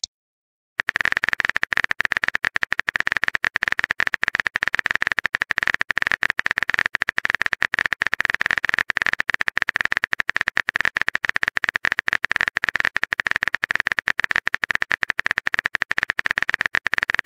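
Rapid, evenly spaced keyboard typing clicks from the TextingStory app's typing sound effect, starting about a second in and running on steadily while a message is typed out.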